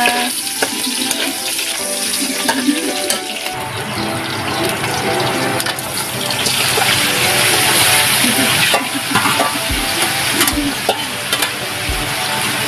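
Shallots and garlic sizzling in hot oil in a wok, stirred with a metal spatula; a few seconds in, pieces of pork are tipped in and the sizzling grows louder and fuller. The spatula scrapes and knocks against the wok a few times near the end.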